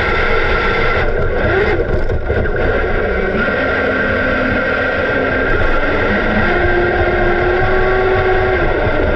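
Electric RC jet boat on a 6S LiPo, heard from a camera on its deck: the motor and jet pump whine steadily over rushing water, the pitch shifting a few times as the throttle changes.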